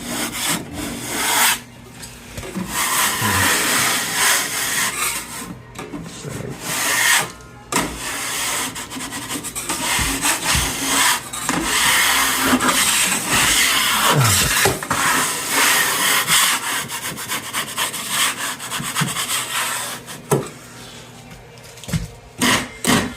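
Metal drywall taping knife scraping over joint compound on the wall in repeated strokes, each a second or two long, with short pauses between them.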